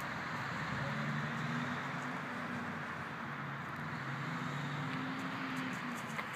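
A motor vehicle's engine hum that comes in about a second in and fades near the end, over a steady hiss of background noise.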